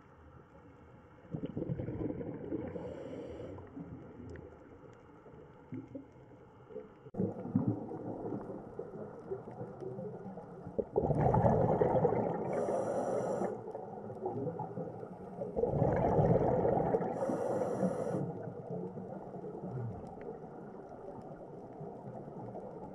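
Underwater camera audio of a scuba diver breathing through a regulator: exhaled bubbles rumble and gurgle in surges a few seconds apart, the later ones followed by a short high hiss.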